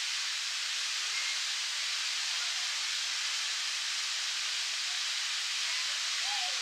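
Fountain jet spraying and splashing steadily into a pond, a continuous even hiss of falling water.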